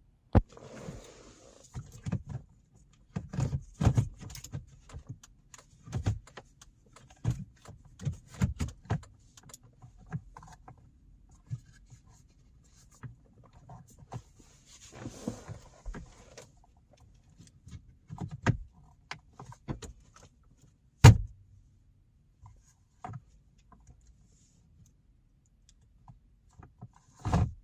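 Plastic dashboard trim being handled and pressed back into place: a run of irregular knocks, rattles and clicks, with one sharp snap about three-quarters of the way through as a panel clips in.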